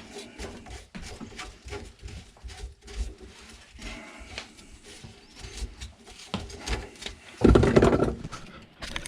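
Scattered clicks and knocks from plumbing parts being handled under a kitchen sink, with one louder knock and scrape lasting under a second about seven and a half seconds in.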